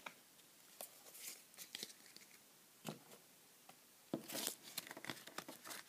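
Pokémon trading cards being handled by hand: scattered light clicks and rustles as cards are flipped and moved, with a louder rustle about four seconds in.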